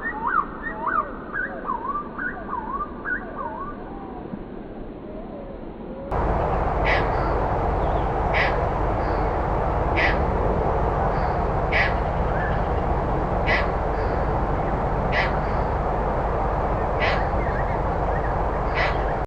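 Bird calls: a series of looping, up-and-down whistled notes. About six seconds in, a different recording cuts in, with short sharp calls repeated about every one and a half seconds over a steady noisy background.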